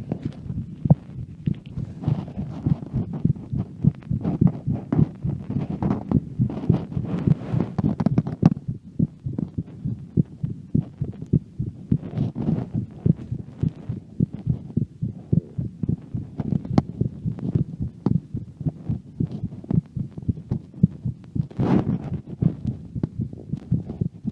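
A person's heartbeat recorded close to the chest: a steady run of low lub-dub thumps through the whole stretch. Bursts of rubbing and rustling noise come and go over it from movement while walking, the plainest in the first third and near the end.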